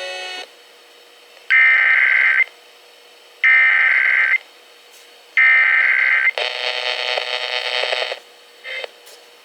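Emergency Alert System SAME header: three bursts of digital data tones, each about a second long with about a second's pause between, followed by a denser burst of about two seconds and a short blip near the end.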